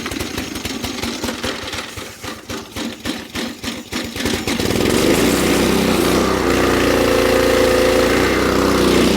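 Honda GC single-cylinder engine on a gas pressure washer, just started by recoil pull on choke, firing fast and unevenly at first. A little over four seconds in, it turns louder and settles into a steady run.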